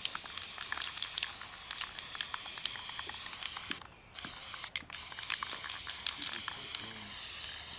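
Aerosol spray-paint can spraying in a steady hiss, cutting out briefly twice about four and five seconds in.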